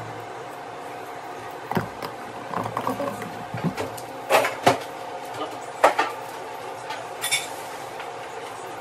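Kitchen handling noises: a metal spoon, dishes and containers clinking and knocking in several separate sharp knocks, with a short hiss near the end.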